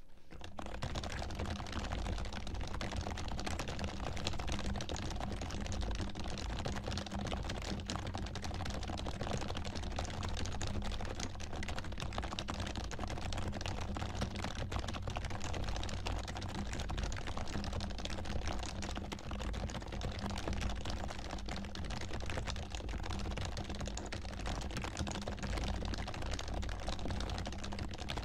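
Fast, continuous typing on a Happy Hacking Keyboard (HHKB Pro) with Topre electrostatic-capacitive switches lightly lubed with Krytox 205g0, a dense, steady stream of keystrokes.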